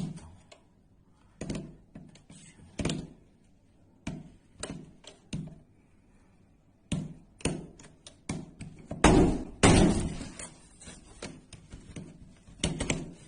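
An irregular series of knocks and thuds, some single and some in quick pairs, with the loudest cluster about nine to ten seconds in.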